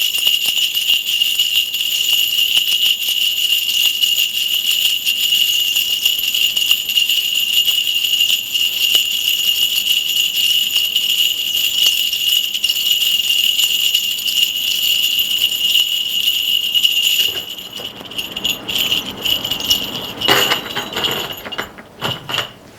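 Korean shaman's ritual bell cluster (bangul) shaken in a continuous bright jingle for a divination. About seventeen seconds in, the shaking breaks into scattered shakes, and it stops near the end.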